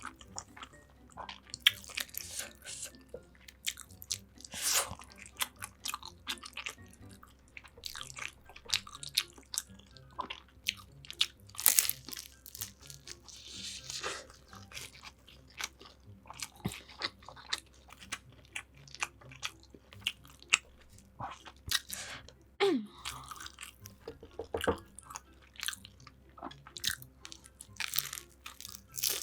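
Close-miked eating: a person biting into and chewing crispy fried food, with many sharp, irregular crunches and softer chewing in between.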